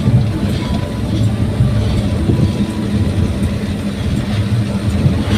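Daihatsu Gran Max pickup under way: a steady low rumble of engine and road noise.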